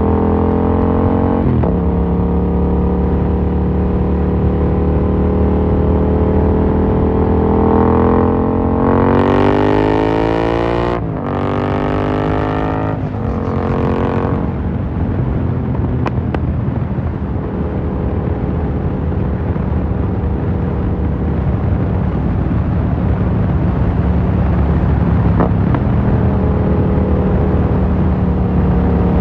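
Yamaha MT-07's parallel-twin engine running through an Akrapovic carbon full exhaust, ridden at a steady pace. About eight seconds in it revs up hard through two or three quick gear changes, each a short break and a fresh rise in pitch, then settles back to a steady cruising note.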